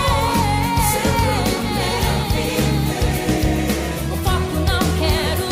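Christian pop song: a voice singing a wavering melody over drums and bass.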